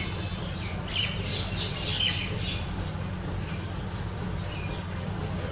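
Birds chirping a few times in quick succession about a second in, high and brief, over a steady low rumble.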